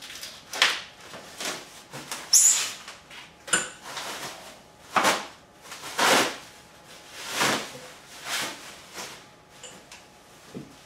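Plastic packaging wrap crinkling and rustling in a series of irregular swishes as it is pulled and cut off a scooter seat.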